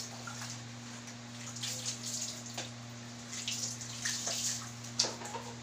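Water running and splashing in short spells at a kitchen sink, with a sharp knock about five seconds in, over a steady low hum.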